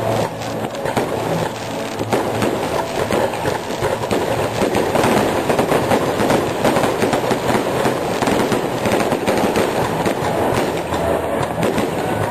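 Fireworks going off in a dense, continuous barrage of rapid bangs and crackles.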